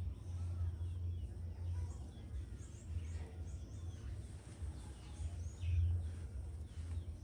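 Outdoor ambience: birds chirping faintly and intermittently over a steady low rumble.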